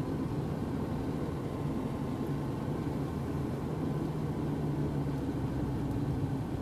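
Car cabin noise while driving at steady highway speed: engine and tyre-on-road noise with a steady low hum.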